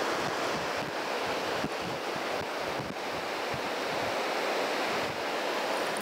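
Steady rushing of river water over rocks, with gusts of wind buffeting the microphone.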